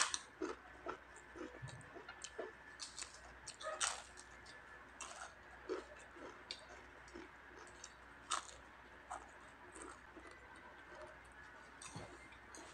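Chewing of crispy fried chicken skin close to the microphone: a sharp crunch at the bite, then scattered small crunches and wet mouth clicks at an uneven pace.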